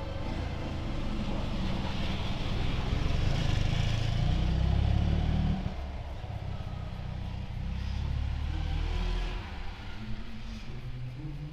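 Ural motorcycle's flat-twin engine running and revved twice: it swells to its loudest a few seconds in, drops off sharply about halfway, then rises again before easing back.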